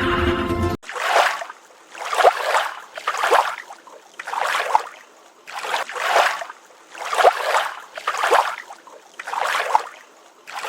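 Music cuts off just under a second in, followed by eight even water swishes or splashes, roughly one every second.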